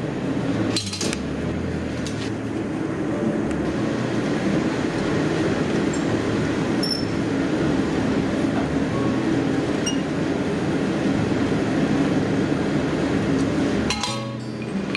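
A forge running with a steady rushing noise while a steel leaf heats in it. There is a metallic clink about a second in and a cluster of clinks near the end as the glowing piece is drawn out with tongs.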